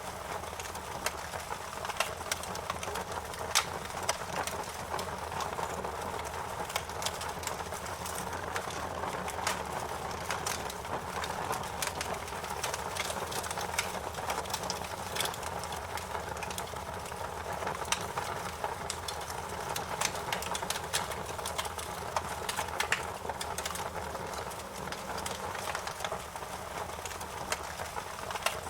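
Wood fire crackling in a fireplace: a steady hiss and rustle with frequent sharp pops and snaps, a few of them louder than the rest.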